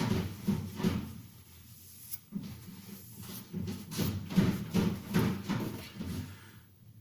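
Victorinox santoku kitchen knife blade stroked over an oiled translucent Arkansas stone, a fine finishing stone that still removes metal. The strokes come as a series of soft scraping swishes, with a quieter stretch partway through.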